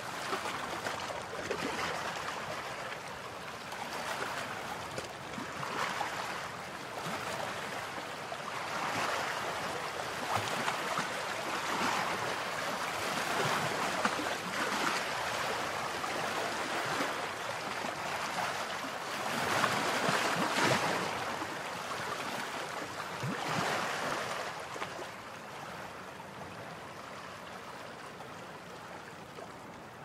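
Moving water: a continuous splashing rush that swells and eases every few seconds, with a louder surge about two-thirds of the way through.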